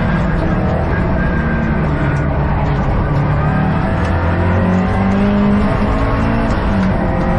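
Subaru WRX STI (VAB)'s turbocharged EJ20 flat-four driven hard on track, heard from inside the cabin. The engine note drops about two seconds in, then climbs steadily as the car accelerates out of the corner.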